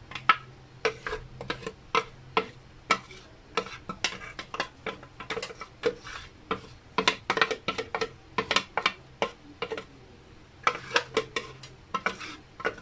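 A kitchen utensil knocking and scraping against a blender jar and frying pan as thick chili paste is scraped out into the pan: irregular sharp taps and clicks, several a second, with short pauses around the tenth second.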